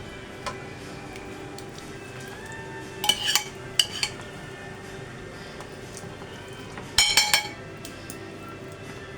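Kitchen utensils and dishes clinking: two short clinks about three and four seconds in, then a quick cluster of clinks about seven seconds in, over a low steady hum.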